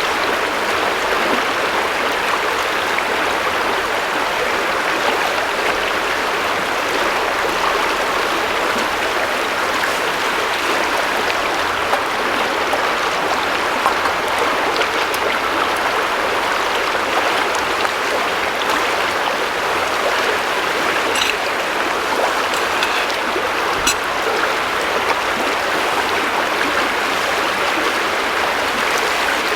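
River water running steadily over its bed, a constant even rush with no pauses.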